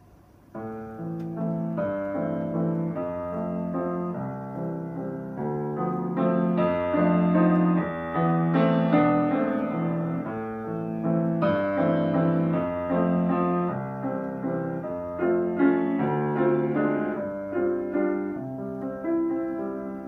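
Grand piano played solo, a continuous piece of melody and chords beginning about half a second in.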